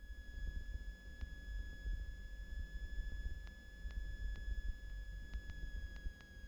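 Steady high-pitched electronic tone over a faint low engine drone in a Piper Cherokee's cockpit audio feed, with a few faint ticks.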